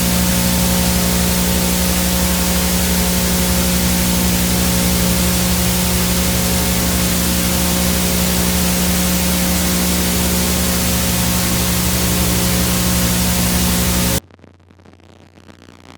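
VHS tape-noise sound effect: a loud, steady hiss of static over a low hum, which cuts off suddenly about 14 seconds in, leaving faint tones.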